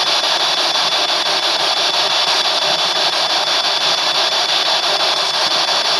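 Spirit box (a handheld radio scanner) sweeping through FM stations and giving out a steady hiss of static with a thin high tone. Only static comes through because no broadcast signal reaches down into the mine.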